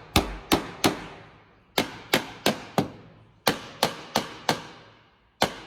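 Hammer blows on a deformed entrance door that rubs at the top, struck to knock it back into shape. About a dozen sharp strikes come in quick bursts of three or four, each ringing briefly.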